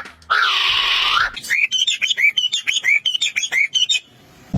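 A harsh, noisy call about a second long, then a bird giving a quick run of short chirps, about four a second, each dropping in pitch.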